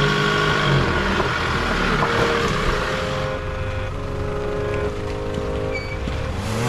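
Four-wheel-drive vehicle engine running while driving, over tyre and road noise. Its pitch shifts in steps a few times.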